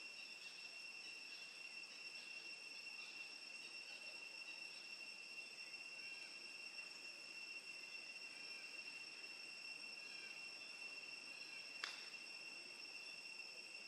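Faint, steady insect drone at one high pitch. A single short click comes near the end.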